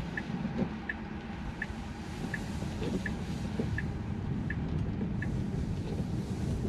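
Tesla turn-signal indicator ticking evenly, about once every 0.7 seconds, then stopping a little past halfway. Under it runs a steady low rumble of tyres on wet pavement inside the cabin.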